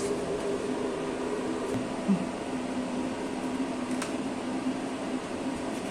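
CNC lathe running idle: a steady machine hum with a constant low tone. There is one small knock about two seconds in.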